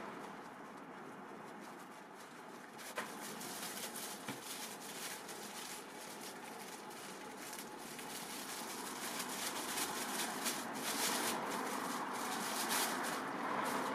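Handling noise from unwrapping a lens: rustling of a drawstring pouch and crinkling of a clear plastic bag over a steady background hiss. The crinkling grows denser and louder near the end.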